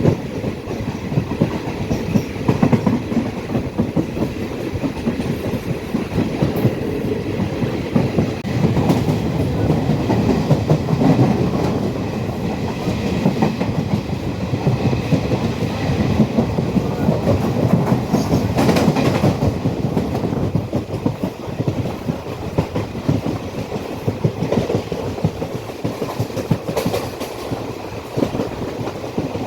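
Passenger train running along the track, heard from on board: a steady rumble with the wheels clattering over the rails. A brief sharper, hissier patch comes about two-thirds of the way through.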